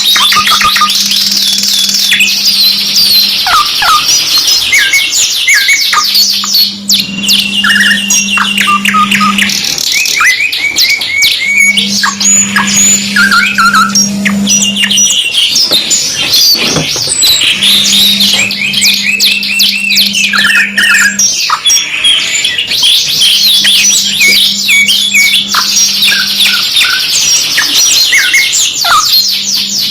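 Domestic canaries singing continuously, in fast rolling trills and chirps. A low steady hum comes and goes in stretches of a few seconds.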